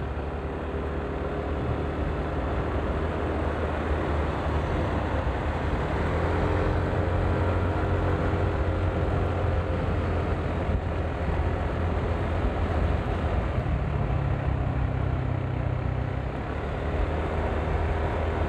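Motor scooter being ridden at steady speed: a constant low engine hum under road and wind noise, with a few faint rising and falling engine tones in the middle.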